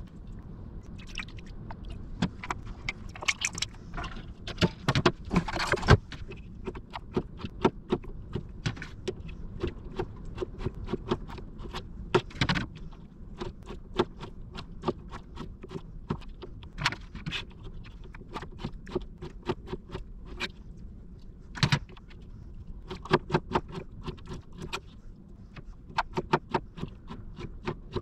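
Knife cutting pitted dates on a cutting board: a long run of irregular taps and knocks of the blade against the board.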